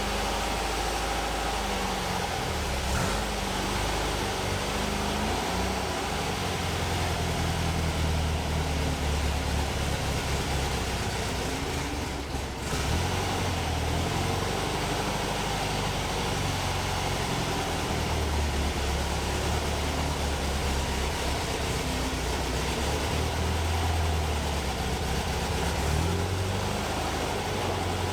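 Air-cooled flat-four engine of a 1964 Volkswagen Bus running under way, its pitch shifting up and down with engine speed, with a brief break in the sound about twelve seconds in.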